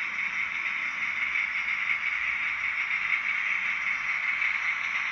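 HO-scale model freight wagons rolling past on the track: a steady hiss of the small metal wheels running on the rails.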